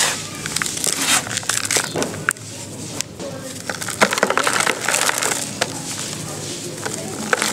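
Hands crunching dry crumbly material in a plastic tub: dry red dirt squeezed in the fingers, then two lumps of dry cement crushed and rubbed against each other, grinding and crackling as they break into powder.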